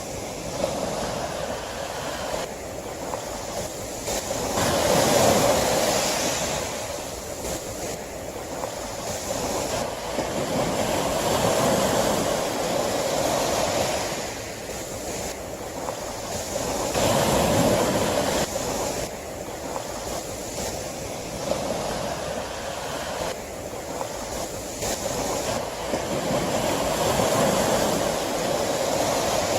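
Sea waves breaking and washing ashore: a steady rushing surf that swells into louder surges about four times and falls back between them.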